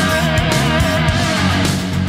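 Background rock music led by electric guitar over bass and drums.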